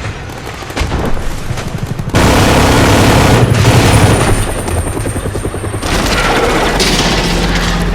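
Battle sound effects: rapid machine-gun fire, then about two seconds in a loud explosion whose noisy rumble carries on for several seconds.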